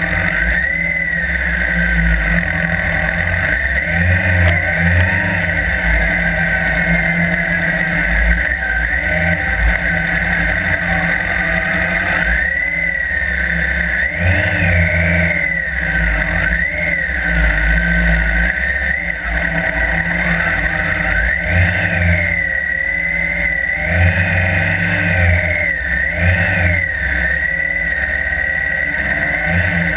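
Motorcycle engine running continuously, its pitch rising and falling every second or two as the throttle is repeatedly opened and closed.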